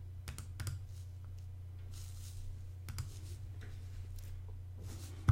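Computer mouse clicks, a few scattered sharp ones, over a steady low electrical hum.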